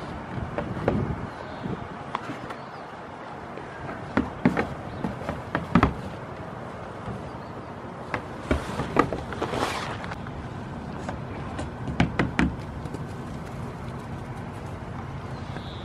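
Small goat kid's hooves clattering and knocking on a plywood roof as it hops and turns, in irregular clusters of sharp taps over a steady background hiss.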